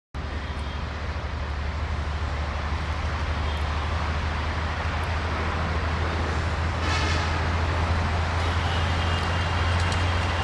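Two-stroke EMD diesel-electric locomotive running with a steady low drone that slowly grows louder, with a brief higher-pitched noise about seven seconds in.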